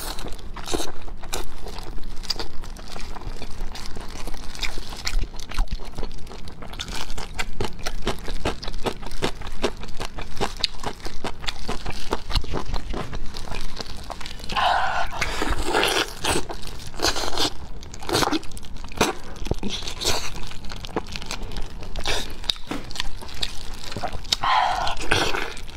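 Close-miked eating of braised pig's trotters: steady wet chewing and biting of sticky skin and gristle, many short smacks and crunches, with louder moments about halfway through and near the end.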